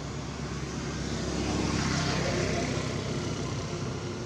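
A passing motor vehicle: engine and road noise that swells to its loudest about two seconds in, then fades.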